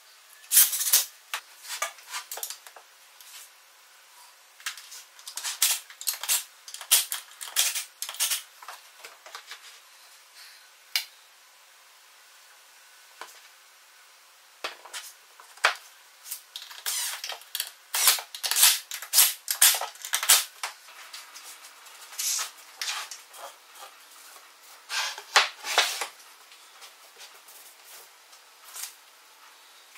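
Irregular bunches of sharp clicks and light knocks as a one-handed bar clamp is worked and plywood parts are handled and set down on a plywood bench.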